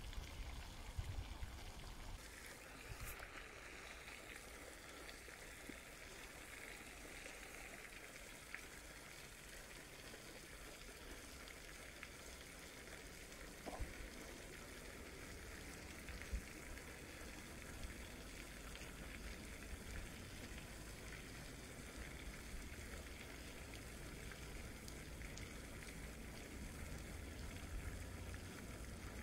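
Faint, steady rush of running water, with low wind rumble on the microphone and a couple of single soft clicks about 14 and 16 seconds in.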